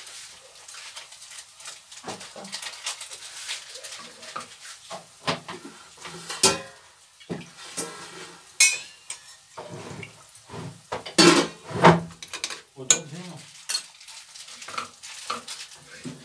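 Wooden spatula stirring and scraping spice masala frying in a non-stick kadai, with a light sizzle and repeated knocks of the spatula against the pan. The masala is being fried down (kashano). The knocks come louder and closer together about two-thirds of the way through.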